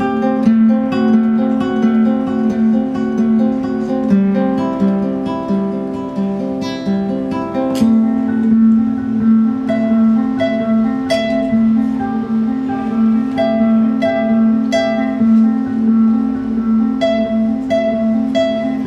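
Acoustic guitar fingerpicked in a steady, repeating pattern of plucked notes, the instrumental opening of a song.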